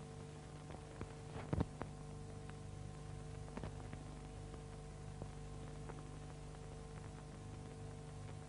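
Faint steady hum with a few scattered clicks and pops, the loudest about a second and a half in: the background noise of an old film soundtrack.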